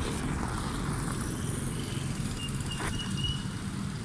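Street traffic noise: a steady low rumble with a motorcycle on the road near the end.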